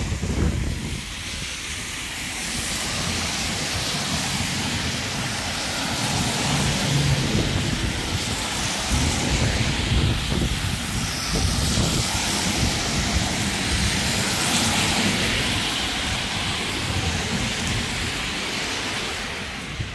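Steady hiss of rain and tyres on a wet street, with low, irregular wind rumble on the microphone.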